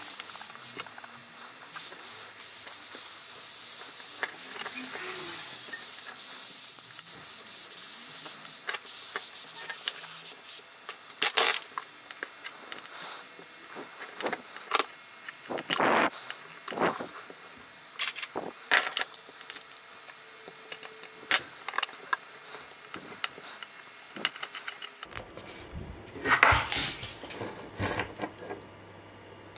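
Compressed-air blow gun hissing steadily into a casting mould for about ten seconds, to loosen the cast. After that, scattered clicks and taps as the flexible mould is worked by hand and the resin-cast worm gear is pulled free.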